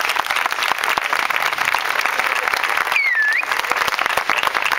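An audience clapping steadily, welcoming a candidate just introduced at the microphone. About three seconds in, a short whistle dips and then rises over the clapping.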